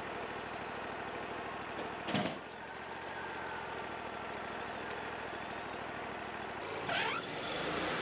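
Wood-Mizer LT40 portable sawmill's engine idling steadily, with a brief sweeping sound about two seconds in and another near the end.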